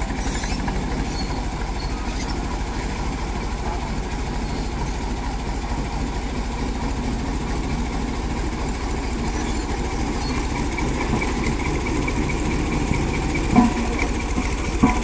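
Road roller's engine running steadily at idle, with two short sharp knocks near the end.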